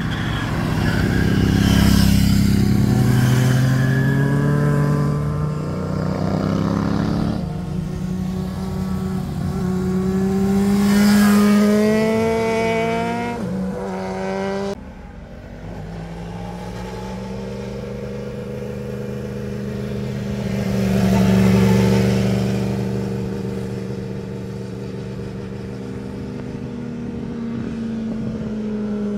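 Motorcycle engines accelerating past at close range, their notes rising and falling through gear changes, loudest about 2 s in and again near 11 s. The sound cuts off suddenly about halfway through, then a motorcycle engine is heard farther off, swelling and fading as it climbs the bends.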